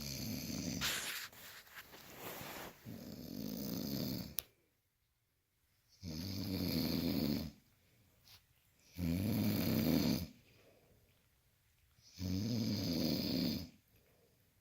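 Sleeper snoring: loud, rasping snores about every three seconds, each lasting a second or so, with a longer, more broken run of snoring in the first few seconds.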